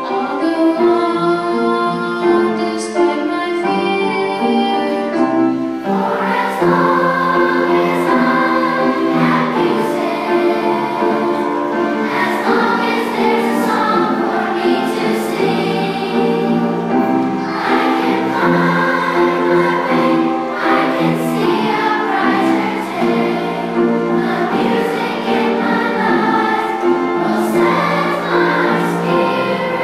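Children's school chorus singing a song together, the voices growing fuller and louder about six seconds in.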